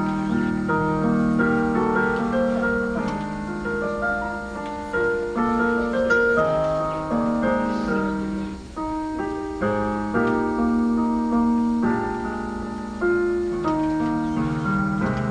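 Instrumental keyboard music: a melody of held notes over a lower accompaniment, with no singing.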